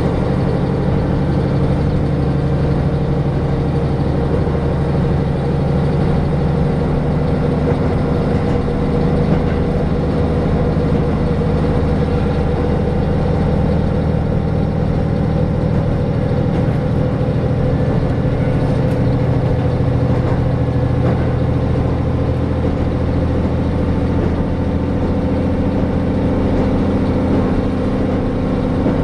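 Diesel railcar running at speed, heard from inside the passenger cabin: a steady low engine drone with even rolling noise.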